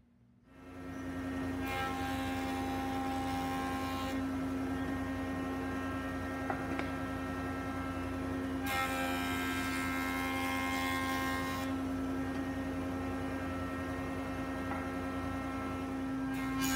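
Steady hum of a woodworking machine's electric motor, swelling up over about a second shortly after the start and then running evenly, with stretches of added hiss.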